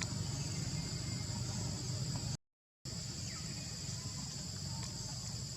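Steady high-pitched insect chirring over a low background rumble, with a few faint short chirps; the sound drops out completely for about half a second midway.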